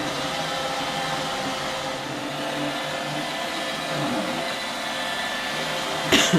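iRobot Roomba 880 robot vacuum running steadily on a rug, its motor and brushes giving an even hum with faint steady whining tones. A single short sharp knock comes near the end.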